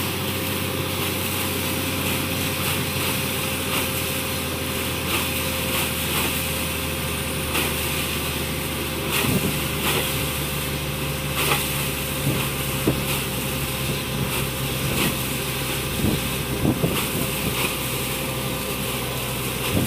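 Borewell drilling rig running with a steady engine drone and a constant hum. From about nine seconds in, sharp knocks come at irregular intervals over it.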